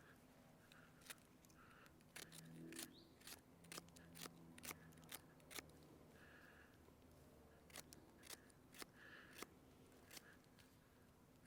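Swiss Army knife blade cutting small sticks from a conifer branch: a quiet, irregular series of sharp clicks and snaps of the blade biting into and through the wood.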